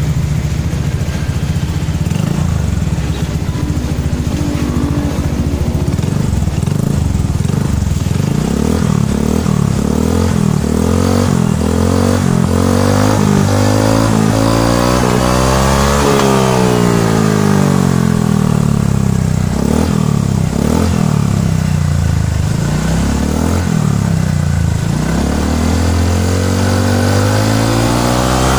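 Honda PCX150 scooter's 149 cc single-cylinder four-stroke engine running through an Akrapovic aftermarket muffler. It idles at first, then is revved again and again, rising and falling in pitch, with a longer, higher rev about midway.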